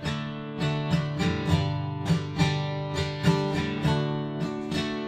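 Acoustic guitar strumming chords in a steady rhythm, with no singing: an instrumental break between verses of a song.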